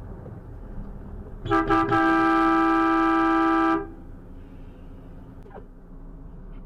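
Truck horn sounded at close range: a couple of quick toots then one held blast of about two seconds that cuts off sharply, over the low rumble of the cab on the road.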